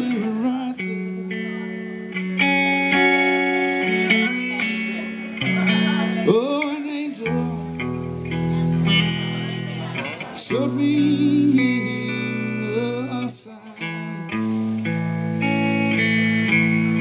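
Live blues-rock band playing a slow song: electric guitar with long sustained and bent notes over bass, with a lead vocal.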